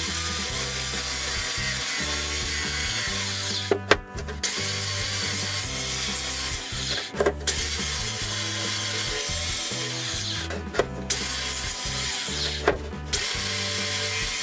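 Small handheld electric power tool running against a wooden cabinet door frame, working its cut inner edge. It runs steadily and stops briefly about four seconds in, again around seven and eleven seconds, and once more near the end.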